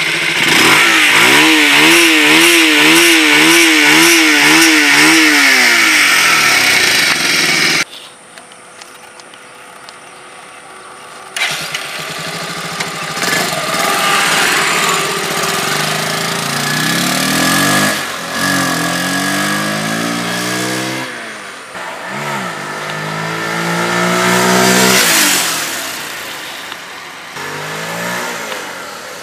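Bajaj Pulsar 180F's single-cylinder engine revved at a standstill in quick, even throttle blips for several seconds. Then the bike pulls away and accelerates, the engine note climbing and dropping back at each gear change. The intake piece that bends the air in the air box has been removed, so the engine draws air straight in.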